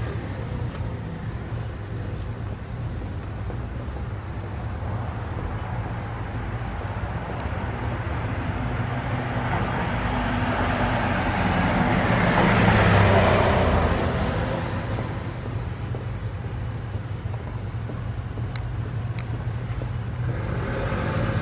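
Road traffic noise, with a car passing close by: the sound swells to a peak a little past halfway through and fades again.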